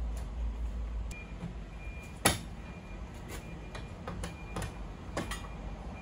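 Hammer strikes on the steel door of a school bus: one sharp, loud blow about two seconds in, then a few lighter taps, knocking out the ground-down rivets that hold the door handle.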